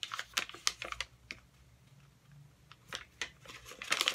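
Paper crinkling and crackling as it is handled and unfolded by hand, in quick bursts during the first second and again near the end, quieter in between.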